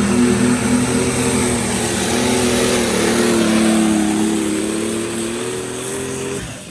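Minneapolis-Moline G850 superstock pulling tractor running at full power, dragging the weight sled. Its engine note sags slightly in pitch under the load partway through, then cuts off abruptly near the end as the pull finishes.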